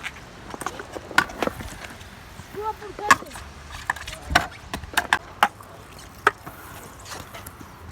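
Skateboard tricks: a string of sharp wooden clacks and knocks at irregular intervals as the board is popped, flipped and lands on pavement, the loudest about three seconds in.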